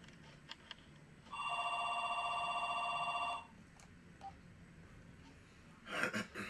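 Mobile phone ringing: an electronic ring with a fast warble that lasts about two seconds and then stops, with a few faint clicks around it and a brief rustle near the end.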